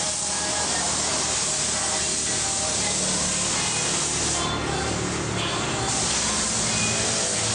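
Compressed-air spray gun hissing steadily as it sprays paint onto a vehicle chassis frame.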